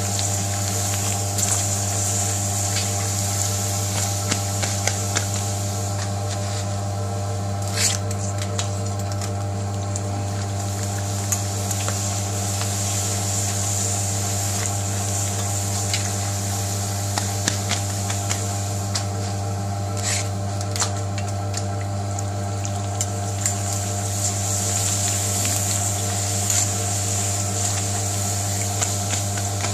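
Hot oil sizzling in an iron karahi as poppadoms fry, the hiss swelling and fading as each one goes in, with scattered sharp clicks of the slotted metal spatula against the pan. A steady low hum runs underneath throughout.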